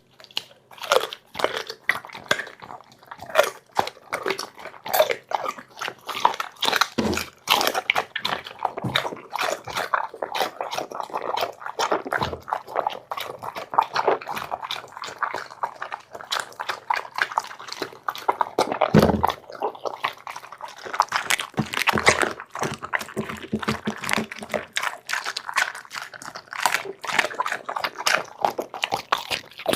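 A dog chewing and biting food with rapid, irregular crunching, with a few heavier low thumps about 7, 12 and 19 seconds in.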